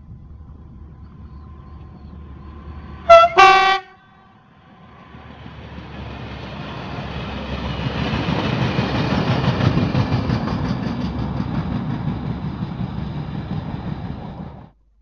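Locomotive horn giving two quick blasts, the second lower in pitch, as a driver's greeting. Then a freight train of flat wagons passes close by, its wheels rumbling and clattering louder as it goes by, until the sound cuts off abruptly near the end.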